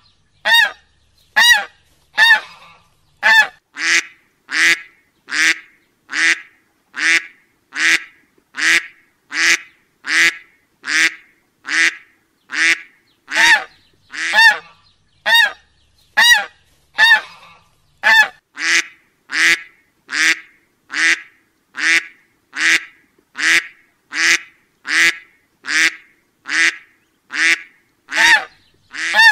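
Waterfowl calling over and over: short calls with a clear pitch, repeated evenly about one and a half times a second.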